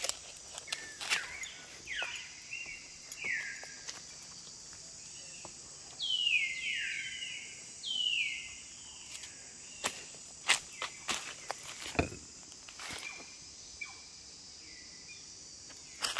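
Footsteps crunching over dry leaf litter with scattered sharp clicks, under a steady high-pitched insect drone. A bird calls repeatedly in falling whistled notes, loudest about six to nine seconds in.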